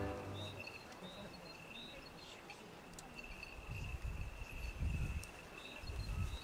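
Quiet outdoor ambience as music dies away at the start: short high bird chirps repeat over a thin steady high trill. From about the middle on, gusts of wind rumble on the microphone.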